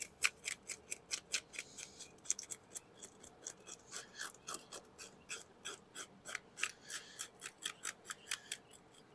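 Small serrated knife scraping the scales off a black sea bass: quick, rasping strokes, several a second.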